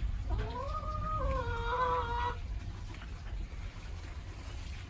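A chicken giving one drawn-out call of about two seconds, rising in pitch at the start and then held fairly level.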